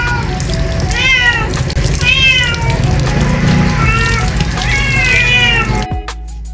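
Wet Persian kitten meowing repeatedly as water is poured over it from a dipper during a rinse: about six high calls, each rising then falling, roughly a second apart, over the steady splash of water. Music starts abruptly near the end.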